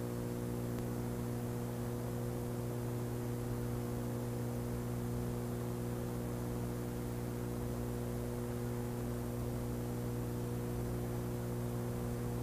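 Steady low electrical mains hum with a faint hiss.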